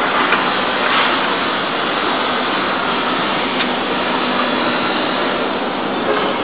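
Steady workshop machinery noise, even and unchanging, with a few faint clicks.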